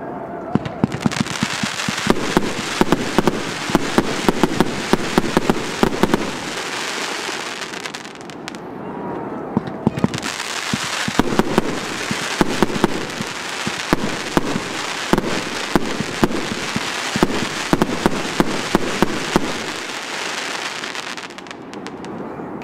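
A firework battery firing, its shells bursting into crackling golden stars: a dense run of sharp pops and crackle, easing off for a couple of seconds about eight seconds in, starting up again, then dying away near the end.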